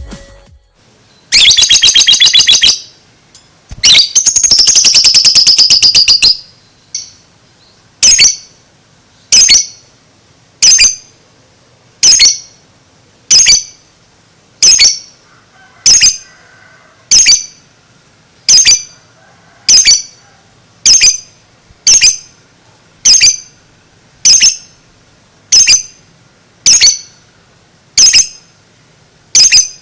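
Lovebird giving two long, rapid chattering trills (the 'ngekek' call), then a steady run of short, sharp high chirps, about one every second and a half.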